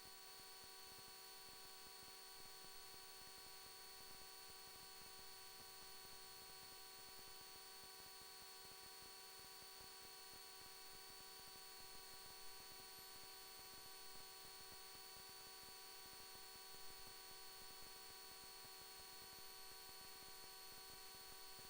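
Near silence, with only a faint steady electrical hum of several fixed tones.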